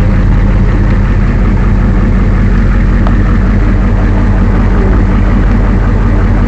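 Monster truck engine running steadily at an even pitch, heard loud from inside the cab.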